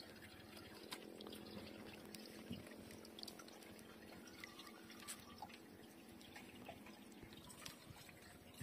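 Near silence: faint water dripping and lapping, with scattered small ticks.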